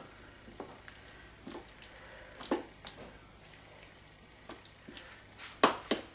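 A spoon stirring a thick tomato and vegetable sauce in a metal pan: soft wet scrapes and scattered knocks against the pan, loudest near the end.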